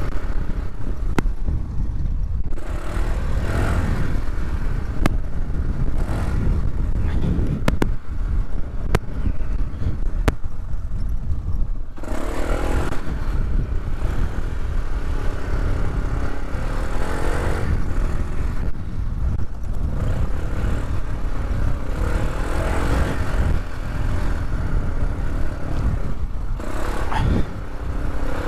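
Polaris off-road vehicle's engine running under changing throttle, its pitch rising and falling several times over a constant heavy low rumble, with a few sharp clicks in the first half.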